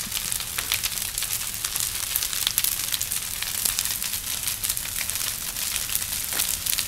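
Large fire burning in a building: a steady hiss of flames with dense, fast crackling and popping throughout.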